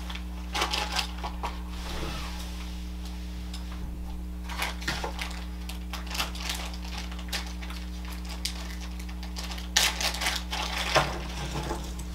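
A plastic zip-lock bag crinkling as it is handled and opened, then cardboard jigsaw puzzle pieces spilled out of it onto a table with a brief clatter, loudest near the end. A steady low hum runs underneath.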